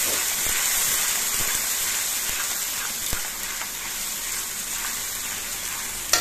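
Onion and spice masala sizzling in hot oil in a kadhai, a steady frying hiss, while a metal spatula stirs it and scrapes and knocks against the pan a few times, the sharpest knock near the end. The masala is being fried until the oil separates.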